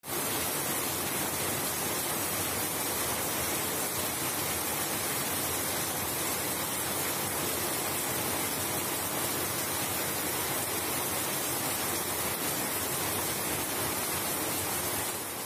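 Heavy rain falling steadily, with water pouring off the edge of a corrugated roof in streams: an even, unbroken hiss.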